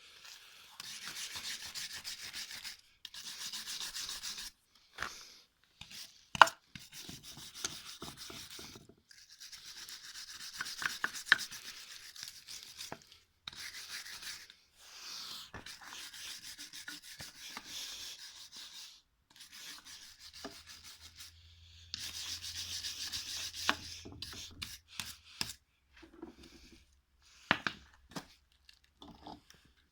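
Scraping, rubbing strokes on a vacuum pump part under restoration, in bursts of one to three seconds with short pauses between, and a few sharp clicks or knocks, the loudest about six seconds in.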